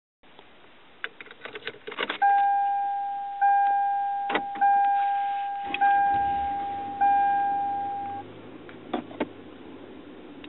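Clicks and rattles like keys, then a car's warning chime sounding five times about a second apart, each tone fading away. A low engine hum comes in partway through, and two sharp clicks follow near the end.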